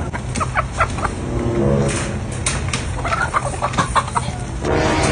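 Caged chickens clucking, in a run of short calls.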